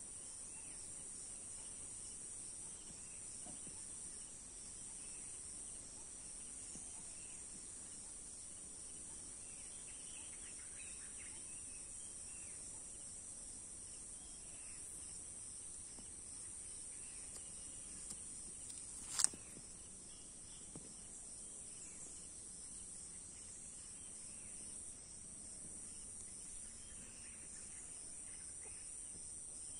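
Faint, steady high-pitched chorus of crickets, with a few faint chirps, and one sharp click about two-thirds of the way through.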